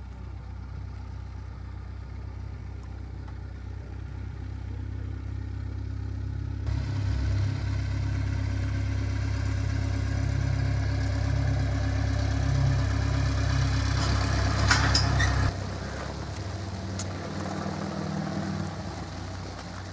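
Cessna 182's single piston engine and propeller at taxi power, a steady low drone. It grows louder as the aircraft comes close, then drops suddenly about three-quarters of the way through and carries on more quietly.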